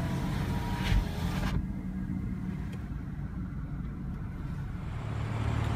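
Electric soft top of a BMW M235i Convertible finishing its closing cycle: a motor hiss with a clunk about a second in, stopping about a second and a half in, leaving the low steady hum of the car idling.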